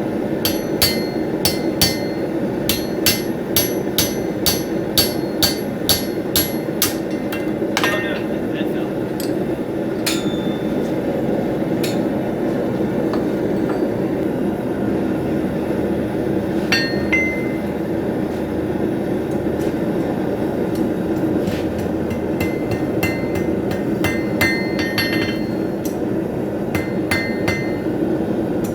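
Hammer blows on hot steel over an anvil, each with a bright ring. About two blows a second for the first seven seconds, then scattered strikes and a lighter flurry near the end, over a steady low rush.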